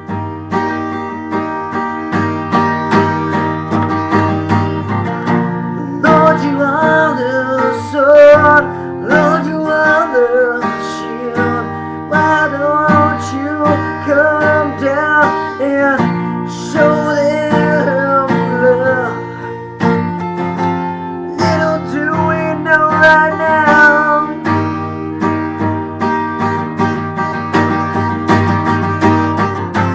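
Music: acoustic guitar strumming steadily, with a wavering melody line above it from about six seconds in until about twenty-four seconds in.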